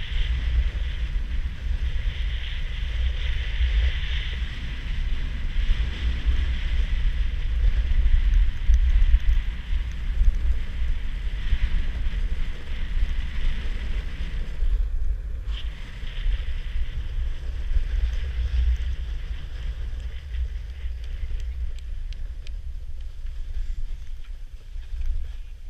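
Wind buffeting the action camera's microphone, with the hiss of edges sliding over groomed snow during a downhill run. It eases near the end as the rider slows.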